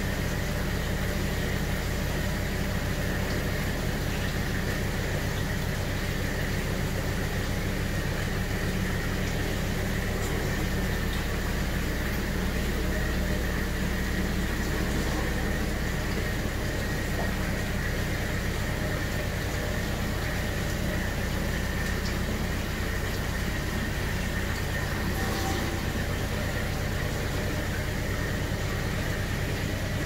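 Steady low hum of saltwater aquarium pumps running, with a constant hiss over it and a faint steady whine.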